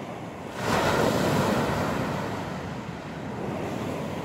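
Sea waves breaking on the beach: a wave crashes about half a second in and its wash slowly fades away over the following seconds.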